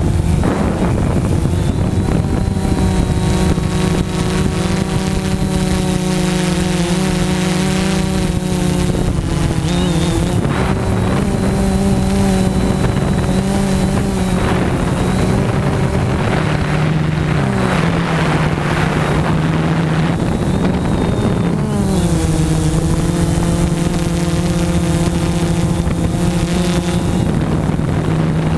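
Electric motors and propellers of a camera-carrying multirotor drone buzzing steadily in flight. The pitch dips and shifts a few times as it manoeuvres, with wind noise over it.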